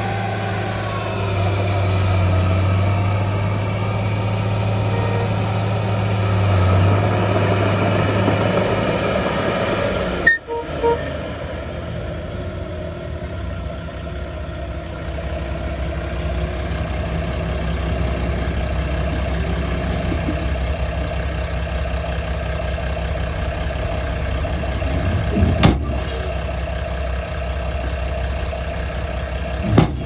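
Heavy diesel engines of a Komatsu D51P crawler bulldozer and a dump truck running steadily, with a brief dropout about ten seconds in and a single knock late on.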